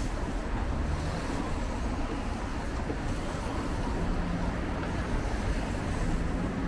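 Steady road traffic noise: a continuous low rumble of passing vehicles, with a faint engine hum coming and going partway through.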